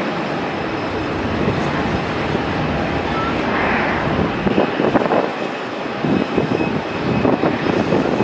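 Jet engine noise of a Boeing 737 BBJ climbing away after takeoff: a steady, dense rumble.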